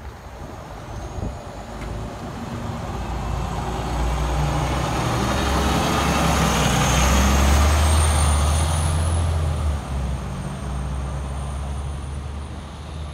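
Scania L94UB city bus's diesel engine driving past at close range, loudest as the rear of the bus goes by and then fading as it pulls away. A high whine climbs in pitch as it gathers speed.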